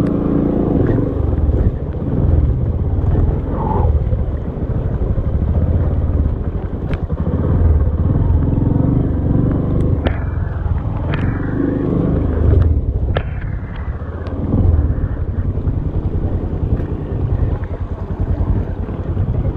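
Motorcycle engine running at low speed, its level rising and falling with the throttle over rough, muddy ground. A few sharp knocks and clatters come in the middle.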